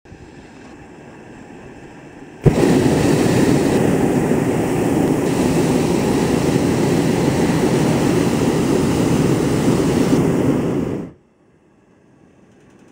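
Hot air balloon's propane burner firing: a loud, steady rushing blast that starts suddenly about two and a half seconds in and cuts off sharply about eight and a half seconds later.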